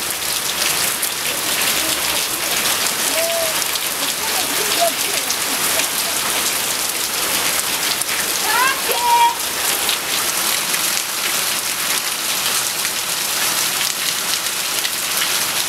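Steady rain falling on a cobbled street, a dense even patter of drops. A brief rising call cuts through it about nine seconds in.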